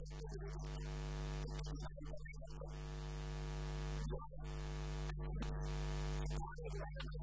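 Steady electrical mains hum from a microphone and sound-system chain: a low buzz with a stack of unchanging higher tones above it, interrupted now and then by brief irregular sounds.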